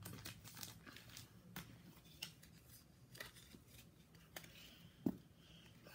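Faint plastic crinkles and clicks of baseball cards being slid into a binder's plastic sleeve pages, with one louder knock about five seconds in.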